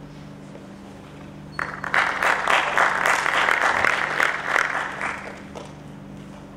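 Audience applauding: the clapping starts abruptly about a second and a half in, holds for about three seconds, then dies away.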